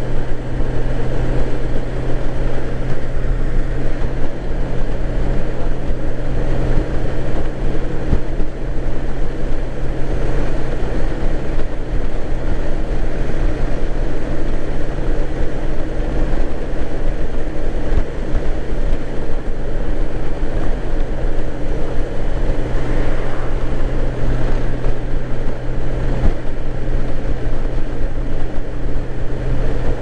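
Honda GL1800 Goldwing motorcycle cruising at a steady speed: a constant wind rush on the microphone over the even drone of its flat-six engine, with no change in pitch.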